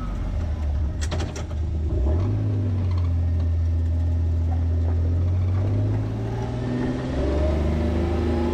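Vehicle engine and road noise heard from inside the cab while driving: a steady low drone that steps up about two seconds in, a few sharp clicks about a second in, and a rising whine near the end as the vehicle speeds up.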